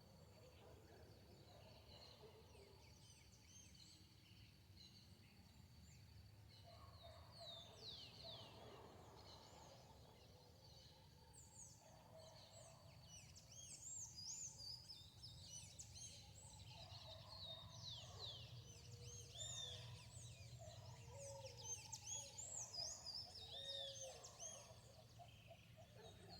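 Faint birdsong: many quick, high chirps from several birds, joined by lower calls, growing busier in the second half, over a low steady hum.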